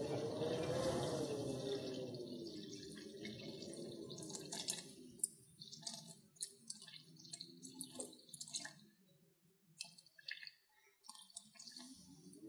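Water poured in a thin stream into a stainless steel mixing bowl of flour, measured out on a kitchen scale. The pouring rises and then falls in pitch over the first few seconds. It then slows to dribbles and drips, stops briefly about ten seconds in, and starts pouring steadily again at the very end.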